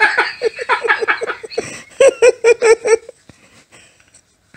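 A man laughing hard in quick, rhythmic bursts, loudest about two seconds in, then breaking off about three seconds in into a near-silent, breathless pause.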